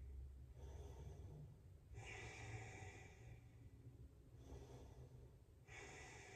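Faint, slow breathing of a woman: a few long breaths, a couple of seconds apart.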